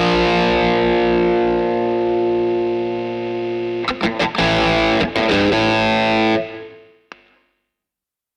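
Overdriven electric guitar played through a DemonFx CK Compressor pedal. A chord rings out long and even, then comes a quick burst of strummed chord hits, and a second held chord dies away about six and a half seconds in. A faint pick click follows near the end.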